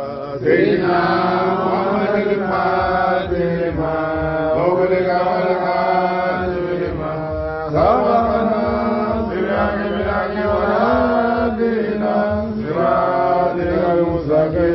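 Islamic devotional chanting: voiced, drawn-out phrases with long held notes that bend in pitch, a new phrase starting about half a second in and another just before halfway.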